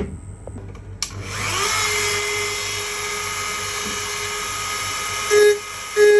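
A Dremel rotary tool on a flex shaft switches on about a second in; its whine rises as the motor spins up, then runs steadily as the bit grinds across a plastic tail light lens. Near the end come a couple of short, louder lower-pitched hums.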